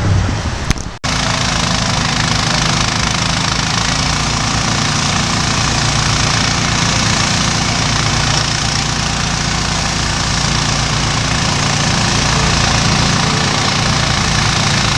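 Engine of a Hudson portable band sawmill running steadily under load as its blade saws through a log. The sound starts abruptly about a second in.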